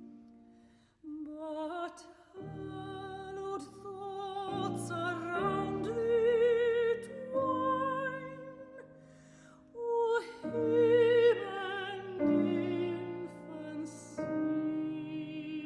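Music: a voice singing sustained, operatic-style notes with strong vibrato over a low, held accompaniment, with brief pauses between phrases.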